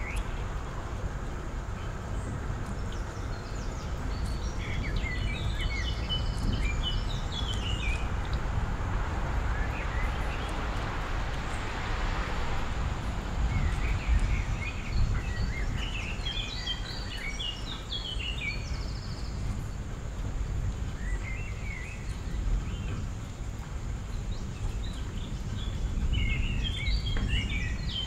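Small birds twittering in repeated bursts of quick, high chirps over a steady low rumble, with a hiss that swells and fades about midway.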